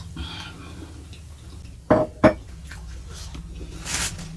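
A heavy glass tumbler set down on the table with two sharp clinks about two seconds in. Around them there is a breathy exhale at the start and a short breathy rush near the end.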